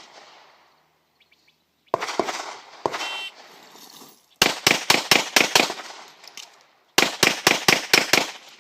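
An electronic shot timer beeps. About a second and a half later a handgun fires six quick shots in pairs, then pauses about a second and a half for a magazine reload, then fires six more quick shots. This is a full El Presidente string of twelve shots, completed in about five and a third seconds.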